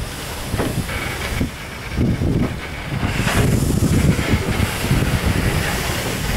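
Steam locomotive on shed hissing steam while a GCR Class 04 2-8-0 creeps forward at walking pace, over a low rumble; the hiss grows louder about three seconds in.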